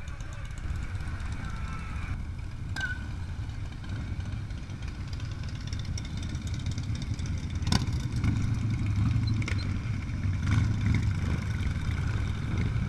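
Several cruiser motorcycles' engines rumbling as they ride by, growing louder from about eight seconds in, with a sharp click near the same point.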